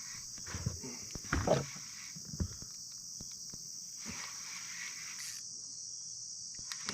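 Steady high-pitched chorus of insects such as crickets, with a lower hiss that comes and goes. A few short knocks and thumps sound in the first couple of seconds, the loudest about a second and a half in.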